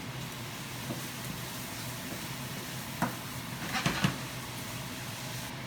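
Steady kitchen background noise with a low hum, and a few light clicks about three and four seconds in.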